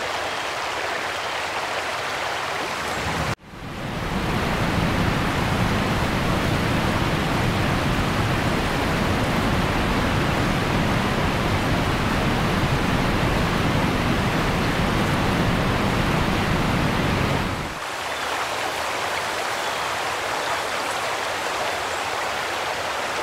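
Heavy rain pouring down steadily. About three seconds in it cuts abruptly to a louder, deeper rush of floodwater streaming across a road, which turns lighter again a few seconds before the end.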